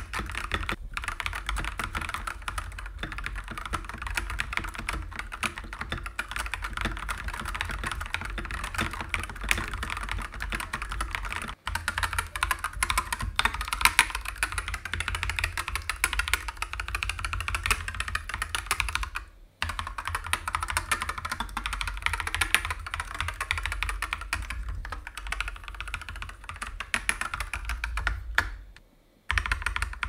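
Akko 3087 RF mechanical keyboard with Akko V3 Cream Blue switches being typed on steadily, a quick stream of key clicks with a few short pauses. The sound is loud and sharp, mostly the keycaps striking the switches as they bottom out.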